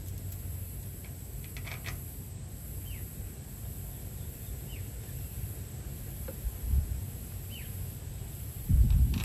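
Quiet outdoor ambience: a steady low rumble with a few short, faint bird chirps, each a quick falling note. Near the end comes a louder burst of low rustling thuds.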